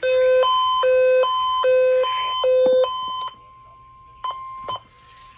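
Electronic alert tone alternating between a low and a high pitch, about four low-high cycles in three seconds. It then drops to a fainter steady high tone broken by two short clicks.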